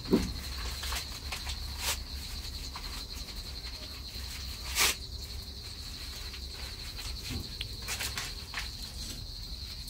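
Crickets chirring steadily at a high pitch, with a few sharp knocks of metal cookware on the stove, the loudest about five seconds in.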